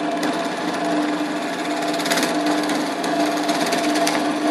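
Bench drill press running with a steady motor hum while its twist bit bores through a wooden board, with a rough scraping of the cutting.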